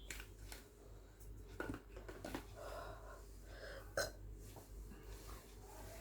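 A woman's short, faint throat sounds after drinking carbonated masala soda, several quick ones with the sharpest about four seconds in.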